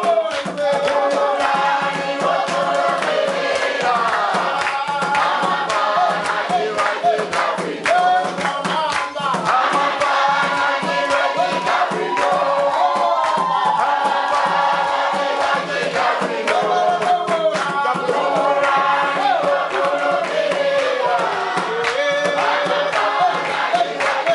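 A large church congregation singing a hymn together in many voices, with steady rhythmic hand clapping.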